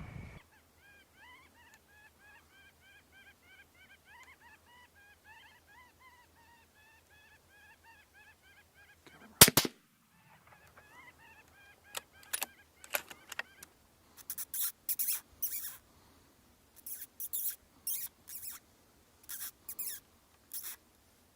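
Faint repeated honking calls, then a single rifle shot about nine and a half seconds in, followed by a string of short hissy scuffing noises.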